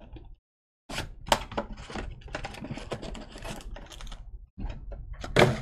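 Topps Chrome baseball cards being handled and flipped through quickly: a dense run of small clicks and rustles, with a louder snap near the end.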